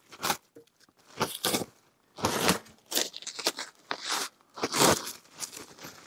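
Plastic bubble wrap crinkling and tearing in a series of irregular crackly bursts as it is pulled off a new motorcycle windscreen.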